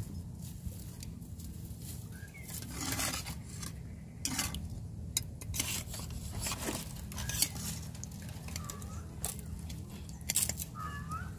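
Steel spatula scraping and clinking against a metal cooking pan in scattered strokes as pieces of climbing perch curry are scooped out and served.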